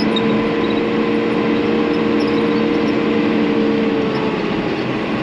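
John Deere tractor's diesel engine running steadily while travelling on the road, its steady engine note easing off about four seconds in.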